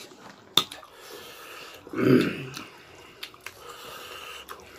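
Close-up eating sounds from a hand-eaten meal: a sharp click about half a second in, then a short, loud throaty voiced sound about two seconds in, with scattered small mouth clicks and smacks.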